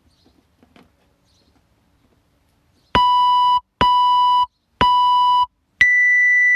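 Electronic interval timer counting down to the start of a round: three beeps about a second apart, then a higher-pitched fourth beep that signals go.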